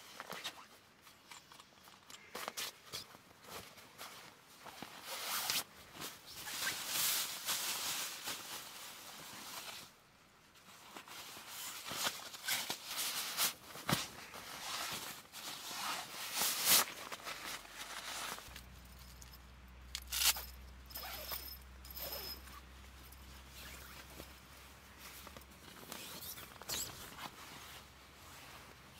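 Plastic and nylon rustling and crinkling in irregular bursts as a sleeping bag, pillow and their stuff sacks are handled and unpacked. A low steady hum joins in a little past the middle.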